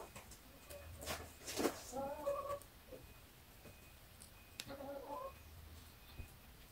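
Quiet crochet work: soft rustles and clicks of yarn and hook being handled, the loudest about a second and a half in. In the background a faint pitched call comes twice, each about half a second long.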